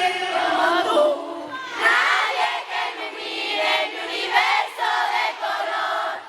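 A crowd of fans' high voices calling out together in overlapping bursts, louder from about two seconds in.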